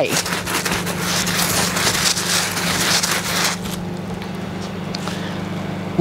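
A crackling rustle for about the first three and a half seconds, then a softer hiss, over a steady low hum.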